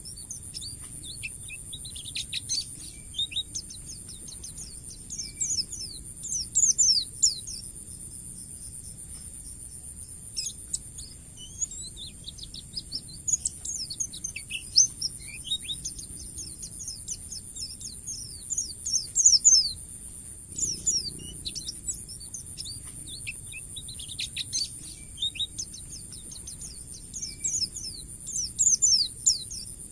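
Pleci (white-eye) singing in bursts of rapid, high, mostly falling chirps and trills, a few seconds apart, over a steady high-pitched buzz.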